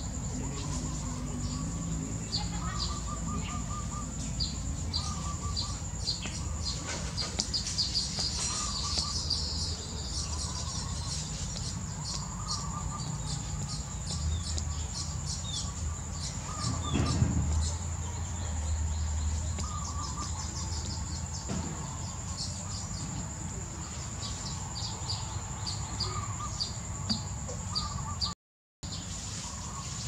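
Small birds chirping, with rapid series of short high notes and repeated lower calls, over a steady high thin whine and a low background rumble. The sound cuts out briefly near the end.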